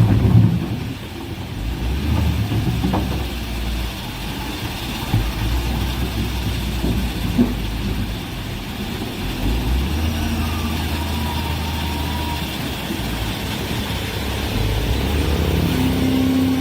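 Heavy diesel construction machinery running steadily with a low engine drone, a few faint knocks, and a faint whine later on.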